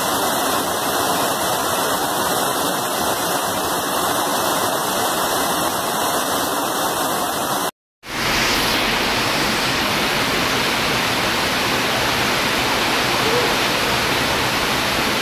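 Floodwater rushing down a steep concrete staircase, a loud, steady rush of water. It cuts out abruptly about eight seconds in, then a similar steady rush of heavy rain and running floodwater on a flooded street follows.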